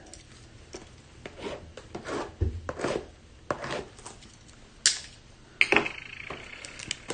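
Hands unwrapping and opening a sealed cardboard box of trading cards: a run of separate rustles and scrapes of cardboard and wrapping, with a sharp click about five seconds in and a short squeaky tearing scrape just after.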